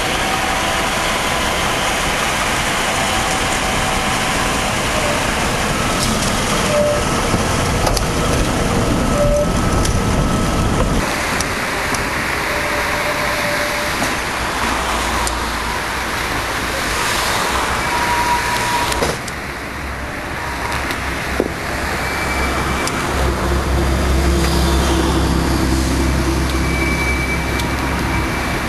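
Ganz UV electric tram running along street track and into a depot: steady running noise of the motors and wheels on the rails, with brief thin high tones now and then, amid street traffic noise.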